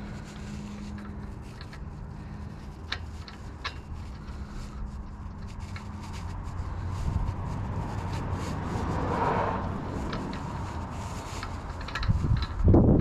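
Thread-repair die being worked by hand onto a car axle's damaged spindle-nut threads: scattered clicks and rubbing as it fails to catch, with a loud thump near the end.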